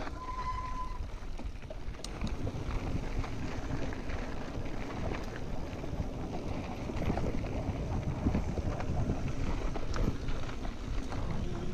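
Mountain bike riding fast down a dirt trail: a continuous rumble of tyres over dirt and rocks, with scattered rattling knocks from the bike and wind buffeting the microphone. There is a brief high squeal at the very start.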